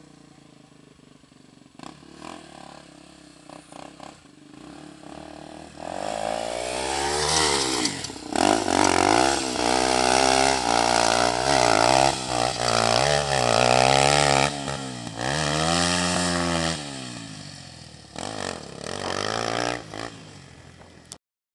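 Motorcycle engine revved hard again and again, its pitch swinging up and down, from about six seconds in until about seventeen seconds, with some clatter. The bike is digging in, its rear wheel spinning. The engine runs more quietly before and after the loud stretch.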